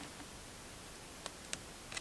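Quiet hiss with three faint, light ticks in the second half: small handling sounds of paper-craft materials and tools on a desk.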